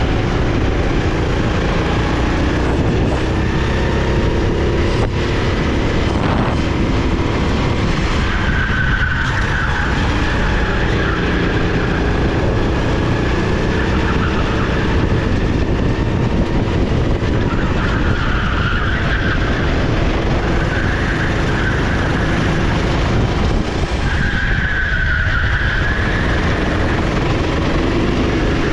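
Sodi SR4 rental kart's 390cc single-cylinder four-stroke engine running at race pace, dropping and climbing in pitch through the corners, with heavy wind rumble on the microphone. A high tyre squeal comes and goes several times, loudest about a third of the way in and near the end.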